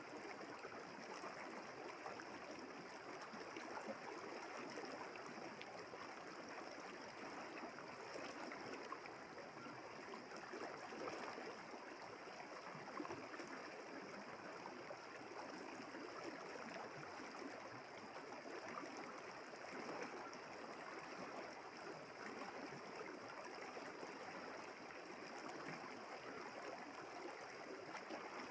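River water flowing steadily over a shallow bed, an even babbling rush, with a steady high-pitched ringing above it.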